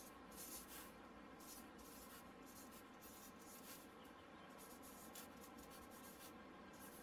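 Faint scratching of a pen writing on paper, in short separate strokes.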